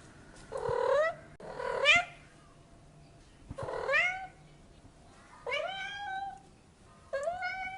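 Domestic cat meowing repeatedly: five separate meows, each under about a second, several rising in pitch, with short pauses between them.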